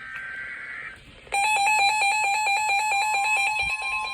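Emergency Alert System alert for a severe thunderstorm warning. It opens with a brief burst of the digital header's warbling data tones. About a second and a half in, a loud, rapid electronic beeping alarm starts, and a steady tone joins it about three seconds in.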